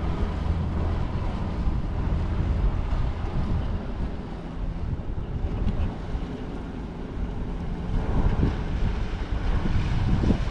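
Wind buffeting the microphone over lapping water, with the low drone of a small boat's outboard motor running, fading after the first couple of seconds as the boat moves off.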